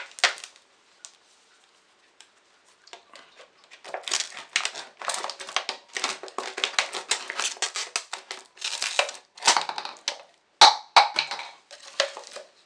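Shears cutting through a thin plastic drinks bottle, a dense run of sharp snips and crackling plastic after a short quiet spell at the start. Near the end the cut plastic crinkles as the pieces are handled.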